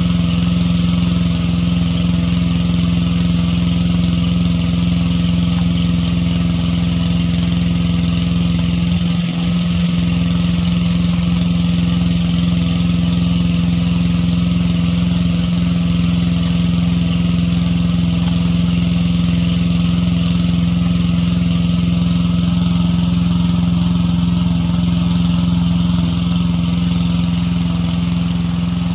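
A vehicle engine idling steadily close by, with a brief dip about nine seconds in.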